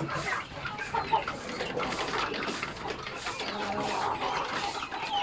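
Several chickens clucking, with many short calls overlapping one another.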